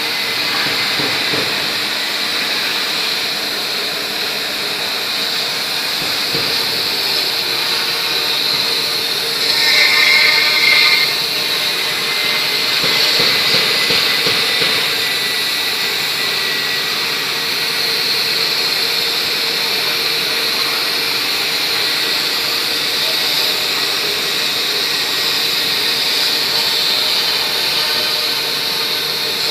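CNC router's HSD spindle running at speed, its cutter milling a relief into a foam block: a steady high whine and hiss of cutting. It gets louder for a second or so about ten seconds in.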